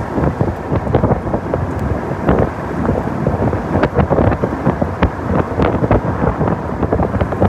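Strong gusty wind buffeting the microphone: a dense, rumbling rush of wind noise broken by frequent short crackling gusts.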